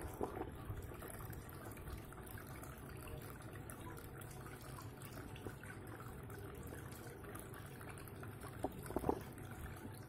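Water trickling and splashing steadily down the tiers of a small tabletop fountain, falling from spouts into the pots below. A couple of brief louder sounds come near the end.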